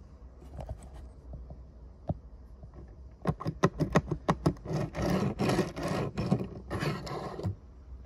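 Tomica die-cast Toyota GR Yaris toy car being worked under a fingertip on a tabletop: a quick run of small clicks from about three seconds in, then a couple of seconds of the wheels rolling and scraping on the surface, stopping near the end.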